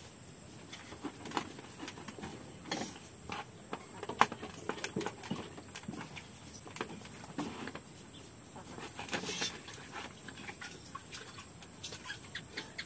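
Quiet rural ambience: a steady high-pitched whine with scattered small clicks and knocks, a little busier about nine seconds in.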